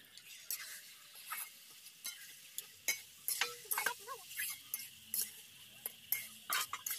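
Metal spatula scraping and knocking irregularly against a large aluminium kadai as marinated chicken pieces are stirred through the masala, over a steady sizzle of frying.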